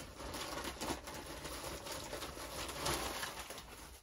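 Plastic shipping packaging being pulled open and handled by hand: a dense run of crinkling and crackling, loudest near the end.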